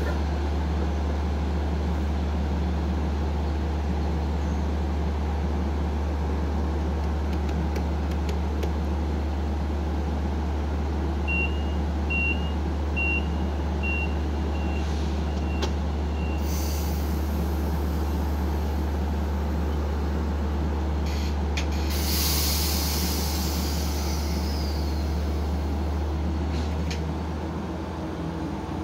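LIRR commuter train of C3 bilevel coaches, hauled by a DE30AC diesel locomotive, standing at the platform with a steady low diesel hum. About eleven seconds in comes a row of six short high beeps, the door-closing warning, followed by sharp air hisses around sixteen and twenty-two seconds as the doors shut.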